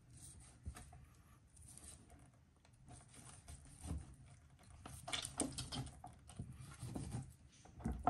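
Knife cutting on a chopping board: faint, irregular taps and scrapes that come thicker and louder from about five seconds in.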